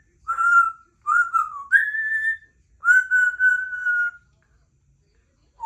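Congo African grey parrot whistling a short series of four clear, steady notes, the third pitched higher and the last held for about a second.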